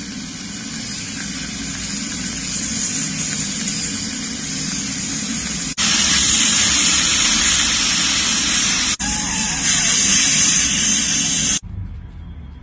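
Steady spraying hiss of dental equipment working on teeth. It jumps louder about six seconds in, and it cuts off suddenly near the end.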